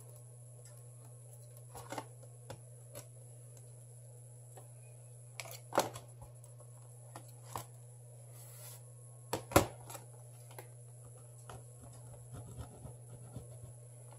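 Hand tool scraping and picking at broken glass and old adhesive on a smartphone's frame: scattered small scrapes and sharp clicks, the loudest about six and nine and a half seconds in, over a steady low hum.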